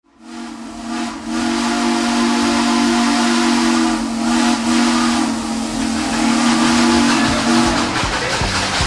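Steam locomotive whistle blowing one long, steady blast over a hiss of steam, cutting off near the end.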